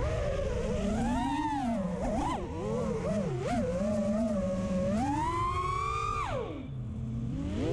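Brushless motors and props of a 5-inch FPV freestyle quad (iFlight Xing2 2306 motors, Gemfan 5136 props) whining, the pitch sliding up and down with every throttle change. Towards the end the whine climbs to its highest pitch, then drops sharply as the throttle is chopped.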